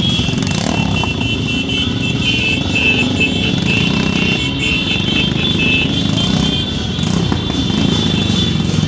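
Motorcycle engines running steadily in a group ride, with a high tone above them that steps up and down in pitch for the first several seconds.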